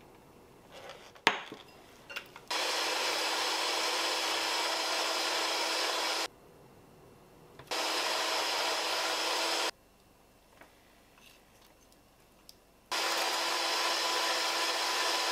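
Cuisinart electric hand mixer beating egg into creamed butter and sugar in a glass bowl. It runs in three bursts with a steady whirring hum and stops in between. A sharp knock comes about a second in, before the first burst.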